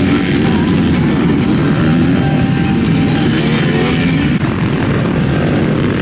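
Several motocross bike engines running hard as the bikes pass close by, their pitches rising and falling over one another as the riders work the throttle.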